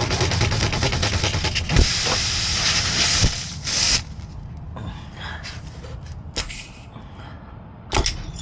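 Tire plug tool being forced into a puncture in a trailer tire's sidewall, rubbing and scraping, with air hissing out of the tire that cuts off suddenly about four seconds in. A few sharp knocks follow.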